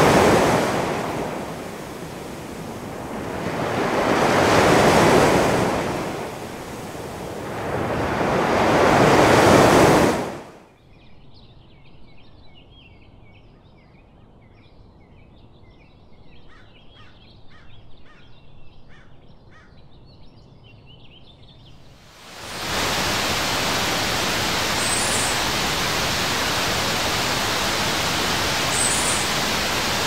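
Ocean waves washing in three slow swells, each rising and falling over about four seconds. About ten seconds in they give way to a much quieter stretch of small birds chirping. Two-thirds of the way through, the steady rush of a small waterfall splashing into a pool takes over.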